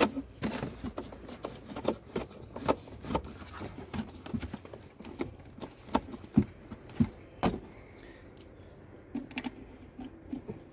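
Screwdriver refitting the mounting bolts of a Ford C-Max rear lamp unit: irregular clicks and taps of metal on the plastic lamp housing, frequent for the first seven seconds or so, then sparser and softer.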